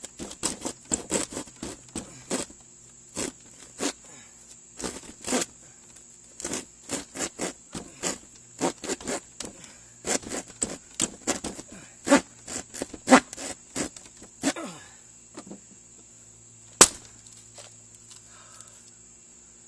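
A small hand saw's blade jabbing and cutting through plywood in short, sharp strokes, irregular at about one to three a second, with one louder knock near the end. Crickets chirr steadily underneath.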